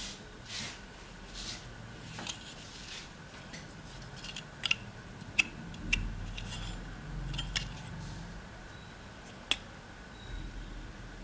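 Light metallic clicks and clinks of a laptop's heatsink and fan assembly, with its copper heat pipe, being handled and turned over in the hands. The clicks come at irregular moments, the sharpest a little after halfway and one near the end.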